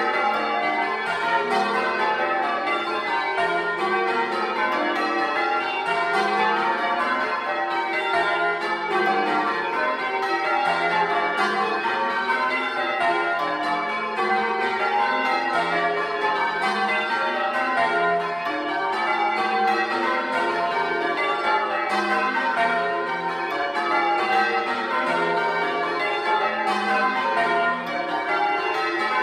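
Ring of ten church bells, tenor in F, rung full-circle in change ringing to Grandsire Caters, heard from inside the belfry: a steady, unbroken stream of strikes in rapid succession, each bell's tone ringing on under the next.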